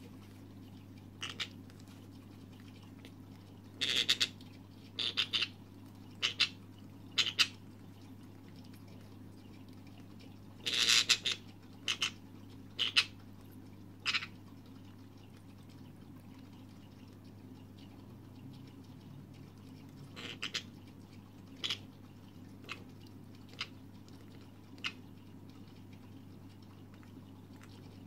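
Senegal parrot chick giving short begging calls while being hand-fed formula from a syringe, about a dozen in all, most in the first half. A steady low hum runs underneath.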